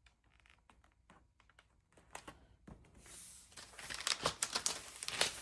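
Hands rubbing and smoothing a sheet of adhesive plastic film down onto a board: a few faint clicks at first, then from about three seconds in a louder rubbing hiss with small crinkles and clicks.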